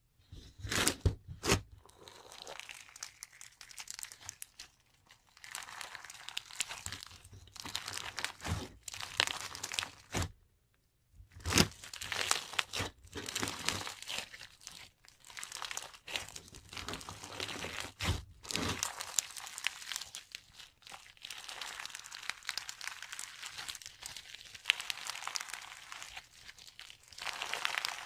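Slime being pressed and stretched by hand, making a continuous crackling and crinkling with many sharp clicks and pops. It stops briefly about ten seconds in.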